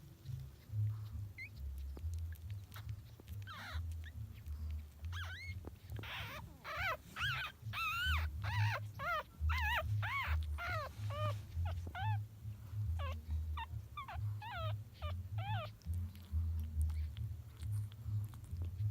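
Chihuahua puppies whimpering: a run of many short, high-pitched squeaks that rise and fall in pitch, thickest in the middle, over a low pulsing rumble.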